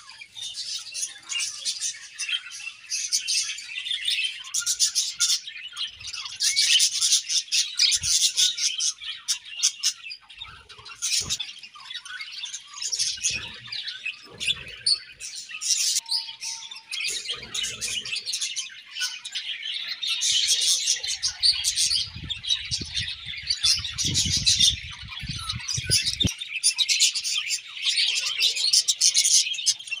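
A colony of budgerigars chirping and singing together: a continuous dense chatter of many overlapping high chirps.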